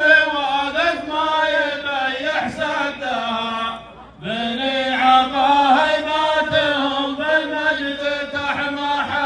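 Bedouin zumala (zamil) chant sung by men's voices in long, drawn-out lines, with a short break about four seconds in before the next line begins.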